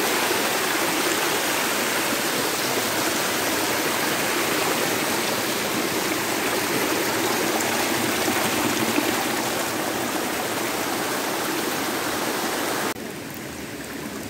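Water rushing and splashing over rocks in a small stream cascade, a steady rushing that drops to a much quieter level near the end.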